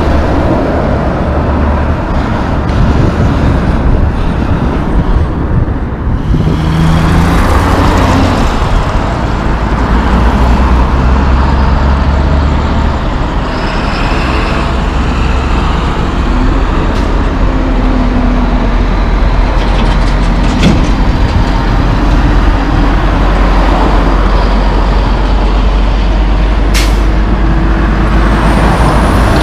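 Super B fuel tanker rig passing close, then city traffic with heavy diesel trucks running, with air brakes. A sharp click sounds near the end.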